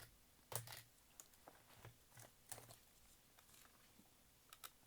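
Faint, scattered clicks and taps of a small plastic cassette player being handled as its disassembly begins, about five light knocks spread over a few seconds.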